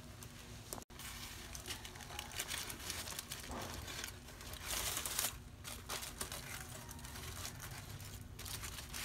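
Aluminium foil crinkling and rustling as metal tongs grip and turn a foil-wrapped fish on a charcoal grill, with small clicks throughout and the loudest crinkle about five seconds in.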